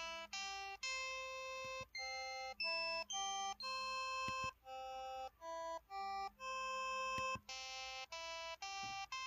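KTF-X3500 mobile phone button tones: a run of clean synthesized beep notes at changing pitches, some short and some held for about a second, following one another like a simple tune.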